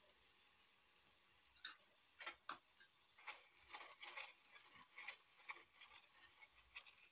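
Oil sizzling faintly on a hot tawa under a frying methi paratha, with scattered small ticks and pops as a metal spatula spreads the oil.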